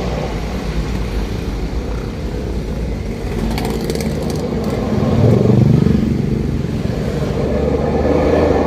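Daihatsu Gran Max van's engine heard from inside the cabin through an aftermarket SUOS "ngorok" exhaust with a three-branch header, giving a deep snoring exhaust note. The engine pulls harder and the note swells about five seconds in, then again near the end.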